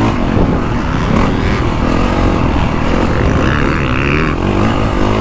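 Honda CRF450R Works Edition's single-cylinder four-stroke engine running on a motocross lap, the revs rising and falling as the rider works the throttle through the ruts.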